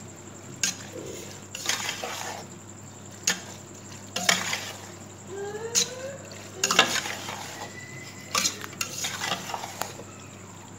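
A spatula scraping and knocking against a metal pot as macaroni is stirred and tossed, with sharp clacks every second or two.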